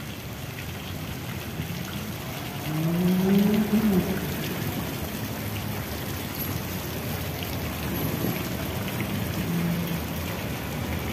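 Water from a tiered stone fountain splashing and pattering steadily into its basin pool. A brief rising hum stands out about three seconds in.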